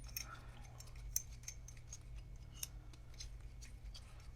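Small steel mini drill-press vise being worked by hand, its leadscrew turning and jaw sliding with light, irregular metallic clicks and scrapes. The threads are freshly cleaned and greased with moly grease.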